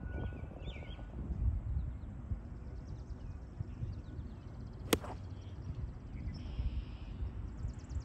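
Birds chirping over a low outdoor rumble, with one sharp click about five seconds in: a golf club striking the ball.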